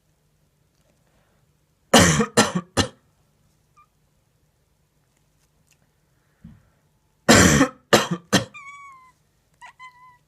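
A person coughs three times in quick succession, and again three times a few seconds later. Right after the second round, a sleeping cat answers with two short grumbling meows.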